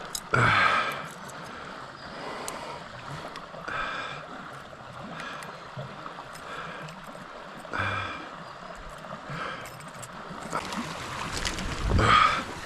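Creek water running steadily, with a few short louder sounds on top. The loudest comes about half a second in and another near the end.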